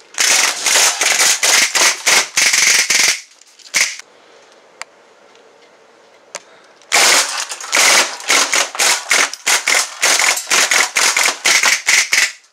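Umarex Steel Storm CO2 BB gun firing full auto: two long strings of rapid pops, the first about three seconds long, then a few seconds' lull with only a couple of single clicks, then a second string of about five seconds.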